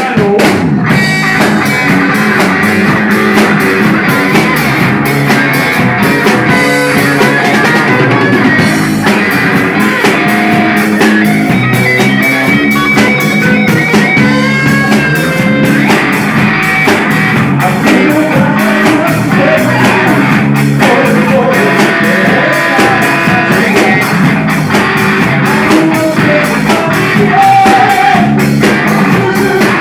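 Live rock band playing: electric guitar, bass and drum kit, with a steady, even drumbeat throughout.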